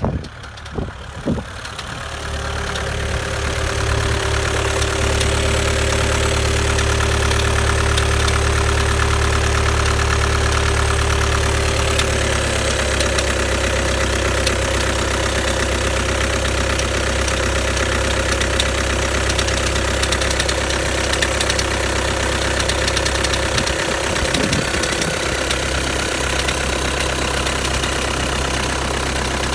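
2011 VW Touran's 1.6 TDI (CAYC) four-cylinder diesel, just cold-started, knocks a few times in the first second and a half and then settles into a steady idle. A steady higher tone runs over the idle until about twelve seconds in. The rattle at idle is a sound the owner suspects comes from a failing dual-mass flywheel.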